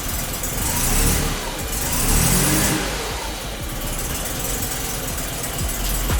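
Audi 90 quattro engine running, with its revs swelling twice in the first few seconds before settling.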